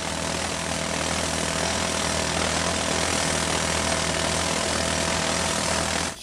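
Steady mechanical noise of hand-held pneumatic breakers chipping apart an old reinforced-concrete bridge abutment, with a low hum underneath; it cuts off suddenly near the end.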